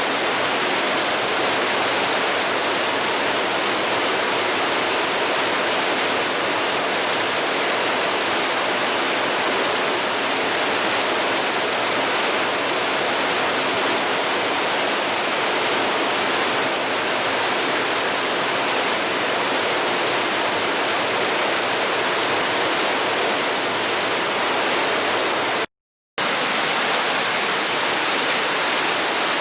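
Mountain river rushing steadily over rocks, an even wash of water noise. It cuts out to silence for about half a second near the end, then resumes.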